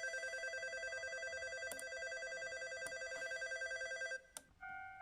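Recorded railway-platform departure bell ringing rapidly, played back as a sound effect from the command station's MP3 player board. It stops about four seconds in, and a steady electronic chime tone starts just before the end.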